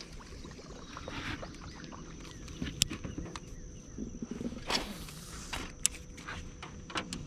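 Handling noise from a spinning rod and reel and a small boat: scattered light taps and knocks, with two sharp clicks about three and six seconds in and a brief hiss a little before five seconds, over a faint steady high whine.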